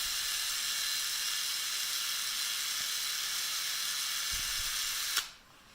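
Cutting fluid sprayed onto a drill bit and bolt: a steady hiss that cuts off abruptly about five seconds in.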